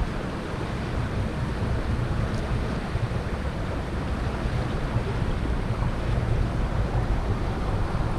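Wind buffeting a GoPro Hero5's microphone in a steady low rumble, with river water washing underneath.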